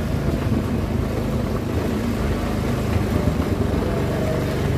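Small motorcycle engine running steadily at low speed, heard up close.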